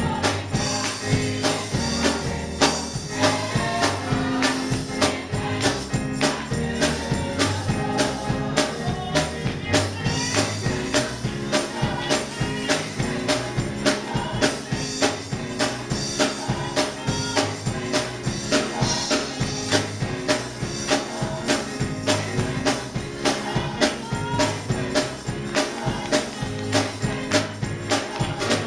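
Gospel music: a church choir singing over a moving bass line and a steady percussion beat.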